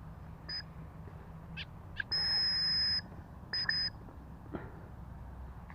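High, steady-pitched whistle notes: a few short blips, then one held for about a second, then two more short blips.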